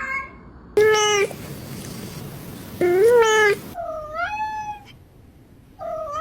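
Cat meowing: four separate meows, the last two higher-pitched than the first two, each bending up and down in pitch.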